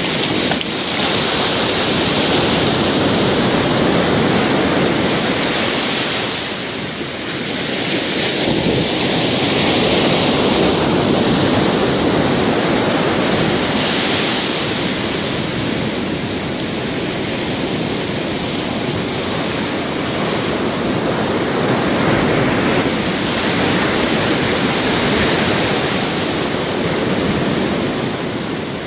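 Ocean surf: waves breaking on the shore and washing up the beach, a steady rush that swells and eases every several seconds.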